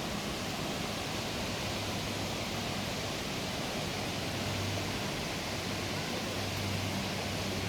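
Steady rushing of fast-flowing water, with a faint low hum that comes and goes.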